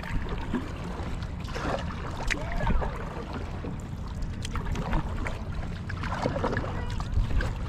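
Kayak being paddled: irregular splashes and drips of water from the paddle strokes and water lapping at the hull, over a steady low rumble.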